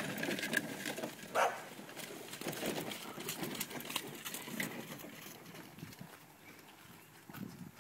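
Ridden horse moving over arena sand: soft, irregular hoof thuds against outdoor background noise, with a brief higher-pitched call about a second and a half in.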